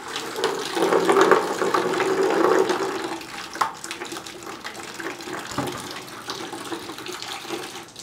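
Tap water running through a homemade PVC-pipe water heater and pouring from its outlet pipe, louder for about the first three seconds and softer after.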